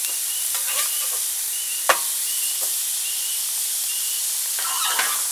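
Burger patties sizzling on the grate of a Napoleon Travel Q portable gas grill, a steady hiss, with a single sharp click about two seconds in.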